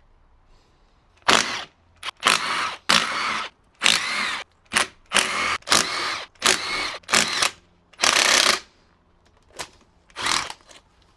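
A handheld power tool run in about a dozen short trigger bursts, each under a second long, with a whirring pitch that bends within some of them.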